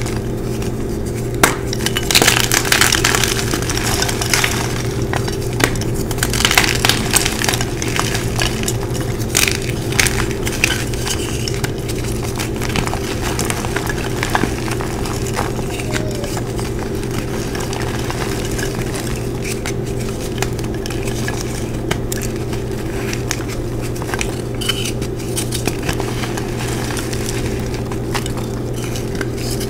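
Blocks of gym chalk (magnesium carbonate) crushed by hand, a stream of crisp crunches and crumbling, densest in the first ten seconds. A steady low hum runs underneath.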